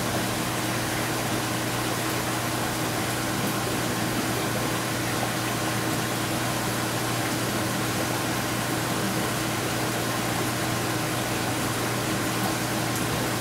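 Steady low machine hum under an even hiss.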